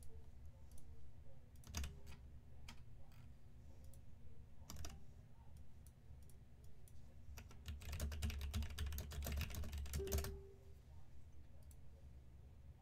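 Computer keyboard typing: scattered key clicks, then a quick run of keystrokes about eight seconds in that stops just after ten seconds.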